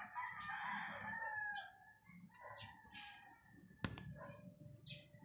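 A rooster crows once, for a little under two seconds, with small birds chirping around it. A single sharp click sounds about four seconds in.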